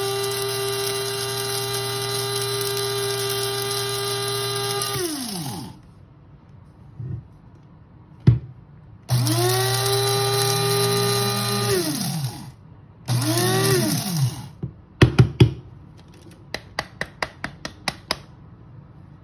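Electric blade spice grinder running on dried jalapeños in three bursts: a long run of about five seconds, a second of about three seconds and a short third pulse, the motor's pitch falling each time it is let go and spins down. Near the end come a few loud knocks and a quick run of clicks as the grinder is handled.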